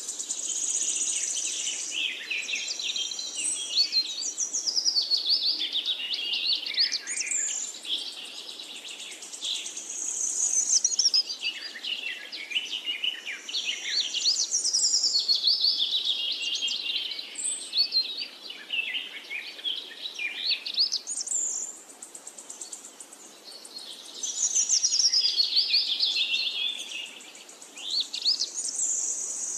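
Many birds chirping and calling together, with quick high chattering phrases that slide down in pitch, swelling and fading in waves every few seconds.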